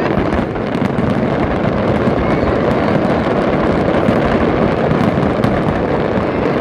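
Fireworks display at full intensity: many shells bursting so close together that the booms merge into one continuous loud rumble, with faint crackling on top.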